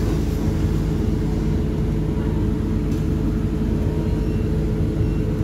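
Bus engine and running noise heard from inside the passenger cabin as the bus moves: a constant low hum with a steady tone.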